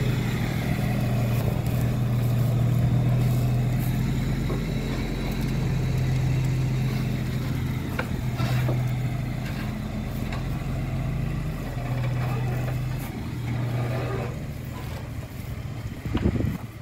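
Scania R540's V8 diesel engine idling steadily, a low even hum that grows fainter over the last few seconds.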